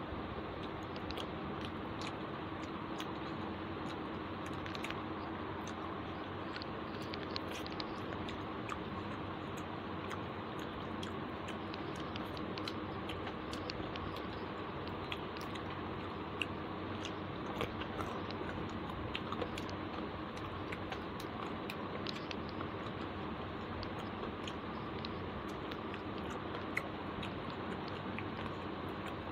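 A person chewing and biting food, eating chicken and rice by hand, with many small scattered mouth clicks and smacks over a steady background hiss and hum.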